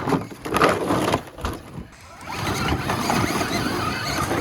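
Electric RC rock crawler climbing a steep rock face: irregular knocks and scrapes of tyres and chassis on rock for the first two seconds, then a steady whirring of its motor and gears under load.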